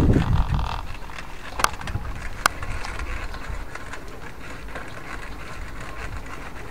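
Bicycle rolling over paving slabs: a steady low rumble of tyres and wind, with a few sharp clicks and knocks from the bike, two of them about a second apart.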